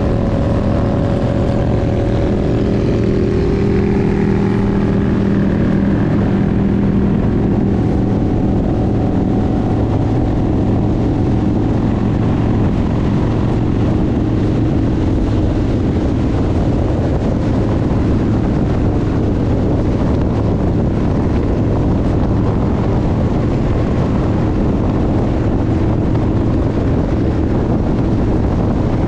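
Harley-Davidson motorcycle's V-twin engine running steadily at highway cruising speed, under a constant rush of wind and road noise.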